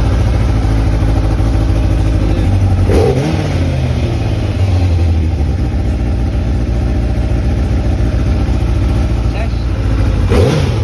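Kawasaki ZX-9R inline-four engine idling and revved briefly twice, about three seconds in and again near the end, testing the newly fitted throttle cable.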